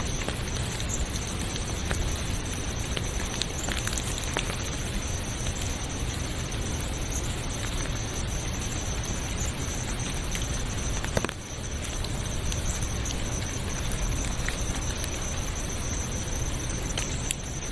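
Steady rain with scattered drop ticks, under a constant high-pitched insect trill; the sound dips briefly about eleven seconds in.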